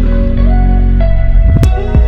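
Background music: a calm new-age instrumental track with sustained notes and a deep bass.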